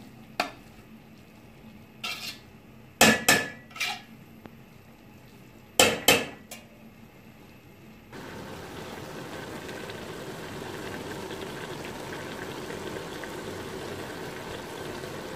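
A metal spoon stirring rice in a steel cooking pot, knocking sharply against the pot several times in the first half. About eight seconds in, the knocking gives way to a steady hiss of the rice and sugar syrup simmering in the pot as it comes to the boil.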